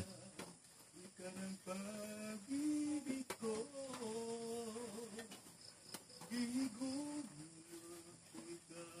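A person softly humming a slow tune in long, held notes that step up and down, with a few faint clicks.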